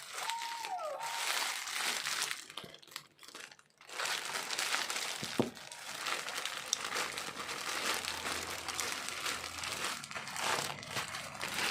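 Packaging crinkling and rustling as a parcel is handled and unwrapped, with a brief lull about three seconds in.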